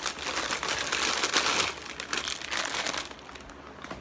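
Plastic food packaging crinkling and crackling as it is handled, loudest about a second in and dying down after about three seconds.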